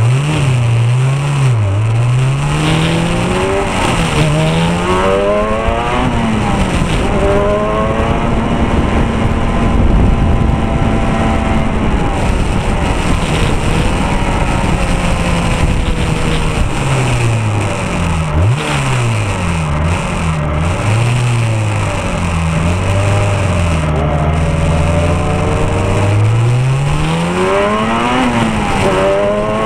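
Open-wheel single-seat race car's engine heard from on board, its pitch repeatedly climbing and dropping as it revs up through the gears and back down, with wind and road rush under it. It holds a steady pitch for a few seconds about ten seconds in, then rises and falls quickly again through the corners near the end.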